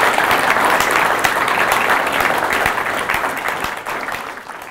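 Audience applauding: many hands clapping in a dense, steady patter that tails off near the end.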